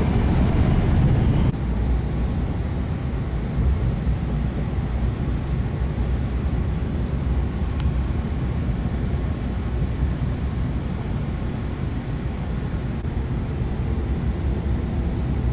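Steady low rumble and hum inside a Tohoku Shinkansen passenger car. It steps down in level about a second and a half in.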